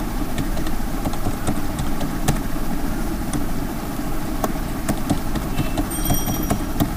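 Computer keyboard keys clicking irregularly as a password is typed, over a steady low background rumble.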